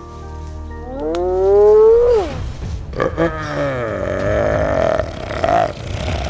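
Dubbed monster roar sound effects: a pitched call that rises and then falls about a second in, more calls about three seconds in, and a long held cry, over the fading tail of background music.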